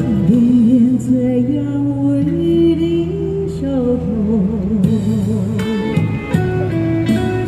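A woman singing a Chinese pop song with vibrato into a handheld microphone over a recorded backing track, both amplified through a small portable speaker.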